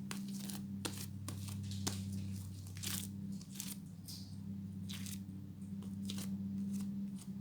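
Sticky fluffy slime, made of glue, shaving foam and contact-lens-solution activator, being kneaded and pulled apart by hand. It gives irregular crackling, tearing sounds as it stretches and sticks to the fingers. A steady low hum runs underneath.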